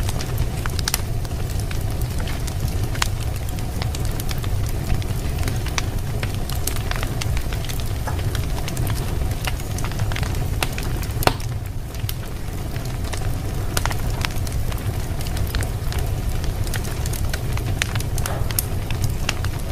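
Wood fire crackling in a fireplace, with scattered irregular pops and snaps over a steady low rumble, and one sharper pop about halfway through.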